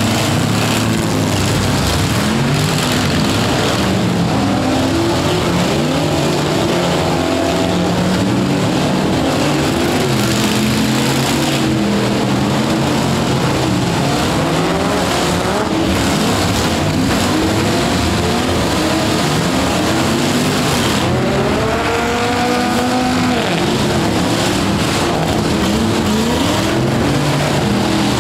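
Several demolition-derby pickup truck engines revving hard at once, their pitches rising and falling and overlapping.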